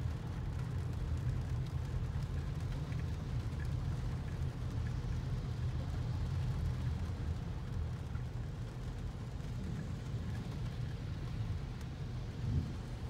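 Car interior noise: a steady low rumble of engine and road heard inside the cabin while moving slowly in traffic.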